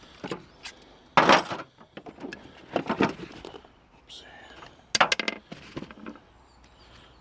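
Short scraping and metallic rattling of a hand tool worked against the engine, cleaning old gunk off a gasket mating surface, with three louder scrapes about a second, three seconds and five seconds in.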